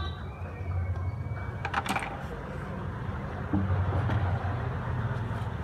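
Small clicks and taps of a metal pry tool working around the edge of an Oppo F15 smartphone's frame, with a quick cluster of sharper clicks about two seconds in. A steady low hum runs underneath.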